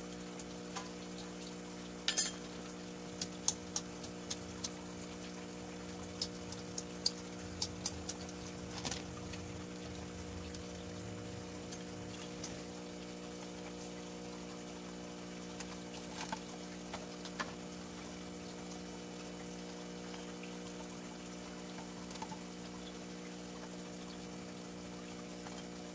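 Steady low electric hum, with scattered light clicks and taps from snail shells and plastic bottles being handled; the sharpest click comes about two seconds in, and the clicks bunch in the first half and again briefly later.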